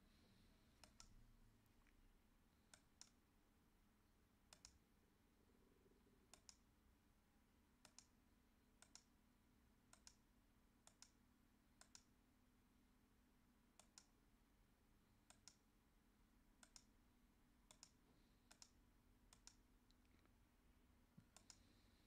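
Faint computer mouse clicks, mostly in quick pairs, coming about every one to two seconds while paging through on-screen wiring diagrams, over a faint steady hum.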